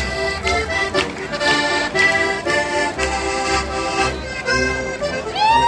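Piano accordion playing a lively traditional folk tune, with a double bass plucking low notes underneath. Near the end a long held high note glides in over the music.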